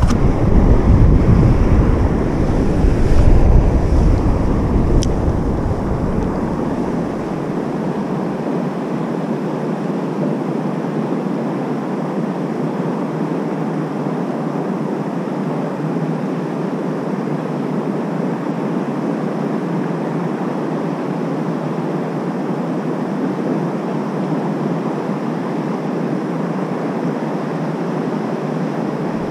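Wind buffeting the microphone with a loud low rumble for the first few seconds, then a steady rush of wind and small waves lapping at the shore.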